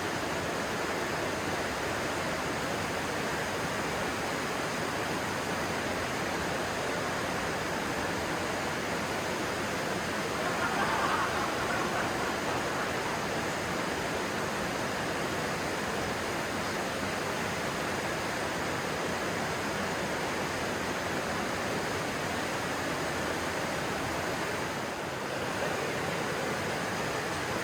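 Stream of water rushing steadily over rocks, swelling briefly about ten seconds in.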